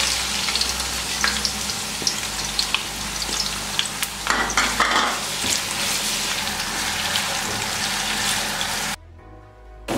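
Sliced onions sizzling in hot oil in a kadai just after being tipped in, a steady frying hiss that drops away suddenly about a second before the end.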